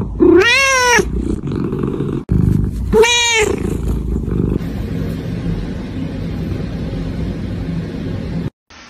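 Domestic cat purring loudly and steadily while being stroked, breaking into two meows that rise and fall: the first near the start, the second shorter, about three seconds in.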